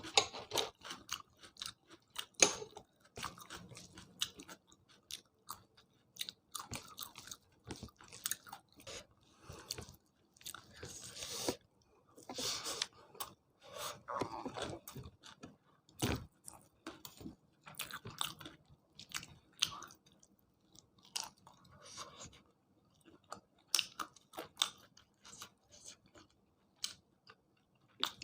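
Close-miked chewing and crunching of a meal of chicken curry, rice and vegetables, with irregular bites and many short mouth clicks.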